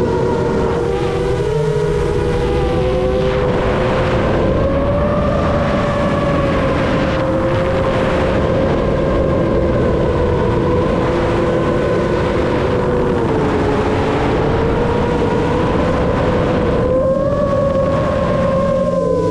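Seven-inch FPV quadcopter's motors and propellers whining in flight over rushing air, the pitch drifting up and down with throttle.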